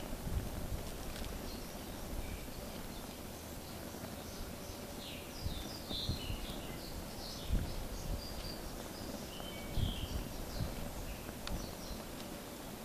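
Wind buffeting the microphone in gusts, with small birds chirping repeatedly through the middle of the stretch.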